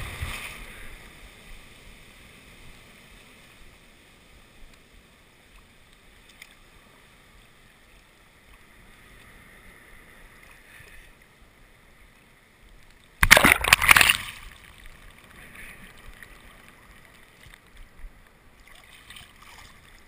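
Seawater sloshing and washing around a camera at the waterline. Breaking whitewater fades out in the first second, then gentle lapping with small splashes, broken by a loud rush of water over the camera about 13 seconds in that lasts about a second.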